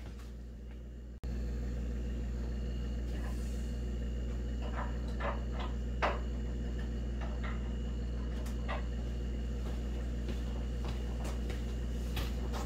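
Scattered light clicks and knocks of hands working on the wooden-and-printed-part gantry of a Lowrider 2 CNC, the sharpest about six seconds in, over a steady low hum.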